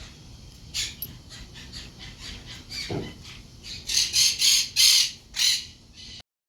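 Birds calling: a run of short, high calls, sparse at first, then coming thick and loud about four seconds in, before stopping abruptly just before the end.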